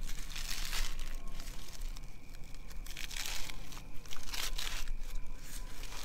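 Charred, dry corn husk being torn and peeled back from a roasted ear of corn: several short bursts of crackly rustling and tearing.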